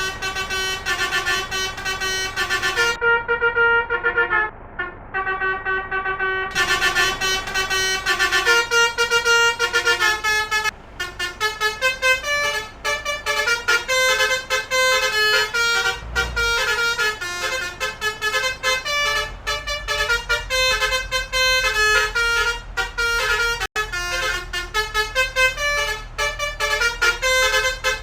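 Indonesian bus 'telolet' basuri horn, a multi-trumpet musical horn, playing a tune of stepped notes. The notes come slowly at first, then in quick runs from about ten seconds in.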